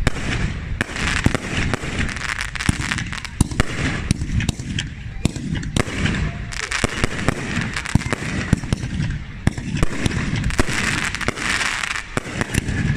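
Fireworks display going off in quick succession: many sharp bangs and crackles, one after another throughout.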